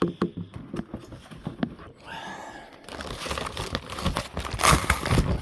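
Packaging being handled: a few light knocks and rustles, then steady crinkling and crackling from about three seconds in, loudest near the end.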